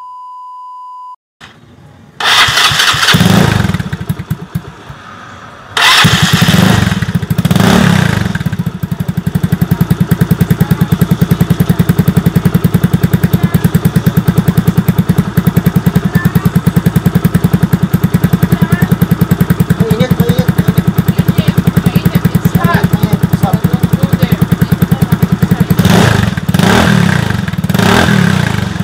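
A short beep, then a Yamaha Mio Sporty scooter's single-cylinder four-stroke engine, fitted with a Sun Racing Cobra aftermarket exhaust with its silencer insert in place, starts about two seconds in, is revved a few times and settles into a steady idle, with a couple of throttle blips near the end.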